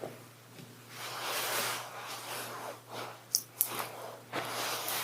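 Heavy cloth cloak rustling as it is handled and folded, with two soft clicks about three and a half seconds in.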